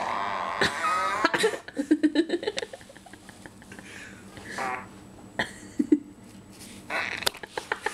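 Fart sounds from a phone's fart-sound app, played several times as a border terrier noses at the towel the phone lies in. The first is the longest, about a second and a half with a wavering pitch, followed by shorter ones. Between them are quick snuffling clicks and towel rustling from the dog.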